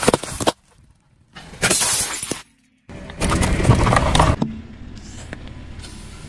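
Car tyre rolling over and crushing packets of crisps and other small objects: three loud crunching, crackling bursts of about a second each, with short silences between them, then a quieter steady rumble of the tyre.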